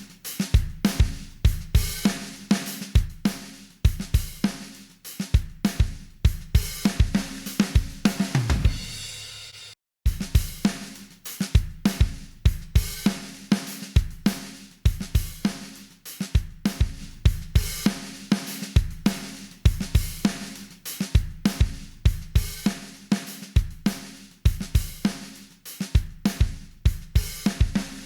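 Music with a full drum-kit beat: kick, snare, hi-hats and cymbals over a bass line. Near the ten-second mark a low pitch falls away and the track stops for a moment, then the beat comes back in.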